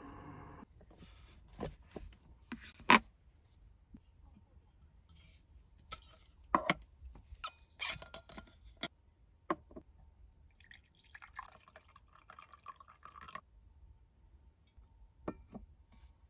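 Stainless vacuum flask and paper coffee cup being handled: several sharp clicks and knocks as the cup lid comes off and the flask cap is unscrewed, the loudest a single click about 3 s in. Past the middle, coffee is poured from the flask into the cup for about two seconds, followed by a couple of taps as the flask is set down.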